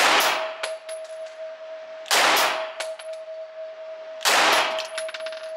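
Three gunshots about two seconds apart from a Canik pistol in a carbine conversion kit, each echoing in the indoor range, with small metallic clinks of spent casings between them and a steady high whine underneath.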